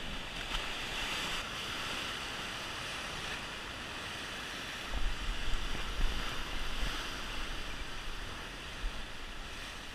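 Stormy ocean surf washing and breaking among rocks in a steady rush, with wind buffeting the microphone in stronger low gusts about five to seven seconds in.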